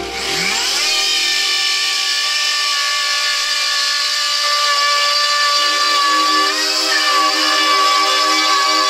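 Electric plunge router motor spinning up with a rising whine, then running at a steady high pitch as it is pushed along the guide rail to cut a groove in chipboard. A little past halfway the pitch dips briefly as the bit takes load.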